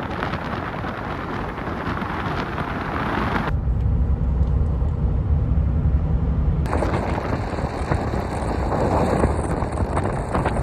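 First-generation Toyota Tundra pickup being driven on a rough road: engine, tyre and wind noise. The sound switches abruptly to a deeper rumble about a third of the way in and back to a broader rushing noise about two-thirds in.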